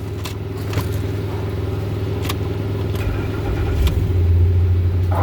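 A 2010 Ford F-150 started on a newly programmed key: a few clicks from the key and ignition, a short crank about three seconds in, then the engine catches and runs steadily, louder, for the last second or so. This shows the transponder key has been accepted by the immobiliser.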